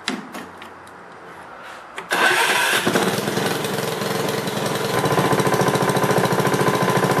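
A few light clicks as the throttle lever is set. About two seconds in, the Honda HRX 217 lawnmower's single-cylinder engine is started by its electric key starter, catches at once and runs steadily, showing the battery is good.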